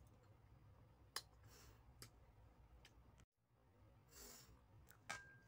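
Near silence, with a few faint clicks as a bare hand picks food off a plate, and a couple of soft breaths.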